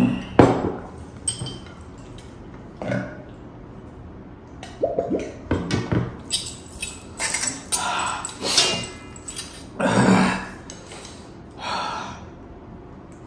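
Close-up eating sounds: a glass set down with a sharp clink just after the start, a steel fork clinking and scraping on a steel plate, a run of wet slurps of spicy instant noodles in the middle, and a couple of loud throaty sounds from the eater.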